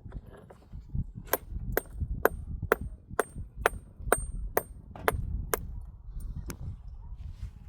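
A hammer striking metal repeatedly, about two blows a second, each with a short metallic ring; the last couple of blows are weaker.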